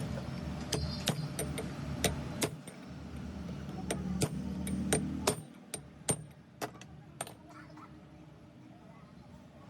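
Scattered sharp clicks and taps of tools and metal parts being handled, over a low rumble that drops away a little past halfway.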